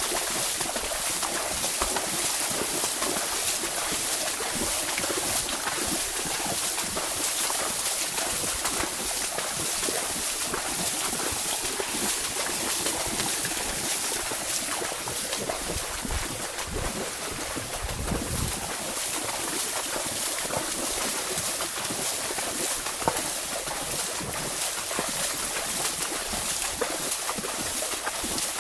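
Horse wading through a flooded paddy field: steady splashing and sloshing of water under its legs, with a few low wind rumbles on the microphone near the middle.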